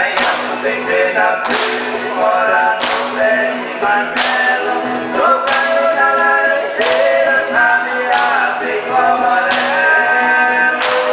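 Group of viola caipira players strumming a chord about every second and a half, with male voices singing a sertanejo-style folk song.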